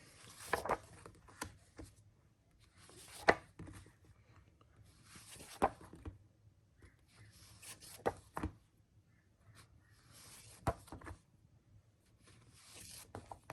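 Comic books being handled and sorted: a rustling, sliding sound of paper about every two and a half seconds, each with a sharp tap as a book is set down.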